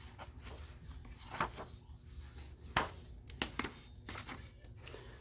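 Pages of a large book being turned by hand: a few short papery flicks and rustles, the loudest near three seconds in.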